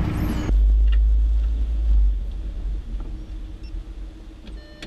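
Low rumble of a car heard from inside the cabin, heavy for about a second and a half after a sudden start, then settling to a quieter rumble.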